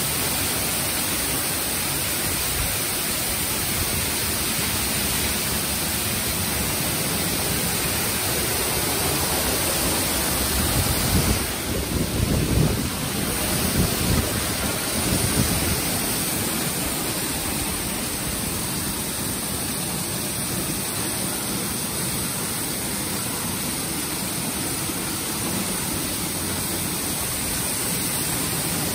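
Istobal M'NEX 22 rollover car wash at work: a steady rush of water spray and spinning wash brushes scrubbing a car, with a louder, uneven stretch about twelve to sixteen seconds in.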